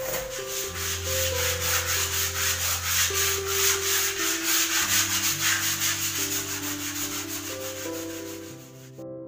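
Sandpaper rubbed by hand over a painted plaster wall in quick, even back-and-forth strokes, several a second, to take off old glue residue. It stops abruptly near the end, with soft background music with held notes underneath.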